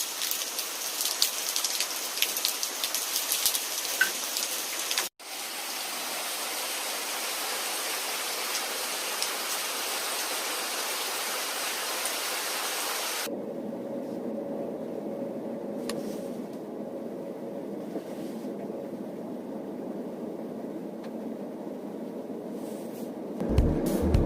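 Steady rain ambience, edited in spliced sections: a crackling patter for the first five seconds, an even hiss until about thirteen seconds in, then a lower, duller rush with a faint hum.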